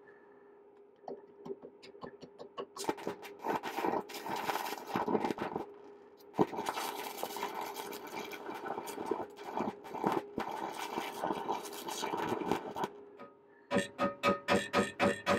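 Electric arc of a small stick welder burning an aluminium welding rod, crackling and sputtering unevenly, with a brief break about six seconds in and stopping about two seconds before the end. Near the end a rhythmic music track starts.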